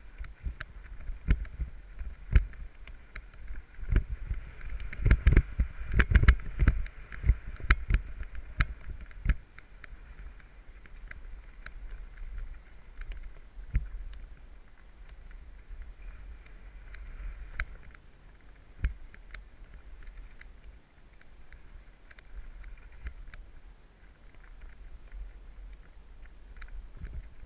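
Mountain bike riding down a rough, sandy dirt trail: the bike knocks and rattles over bumps, thickest a few seconds in and then sparser, over a low wind rumble on the microphone and a steady faint buzz.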